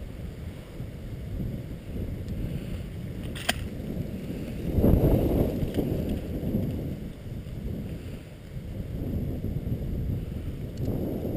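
Wind buffeting the microphone: a low, gusty rumble that swells about five seconds in, with a single sharp click a little before the swell.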